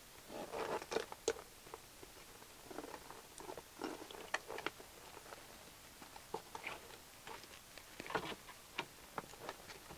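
Irregular small clicks, taps and rustles of wires, plastic connectors and hoses being handled and pushed through a kick panel opening.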